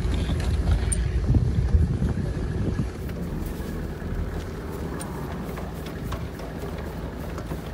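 A vehicle engine running with a steady low rumble, louder over the first few seconds; light clicks and knocks sound over it later on.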